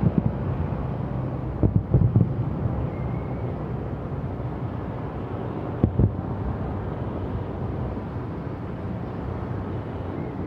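Distant fireworks bursting over a steady low rumble: a thump at the start, a quick cluster of booms about two seconds in, and a pair about six seconds in.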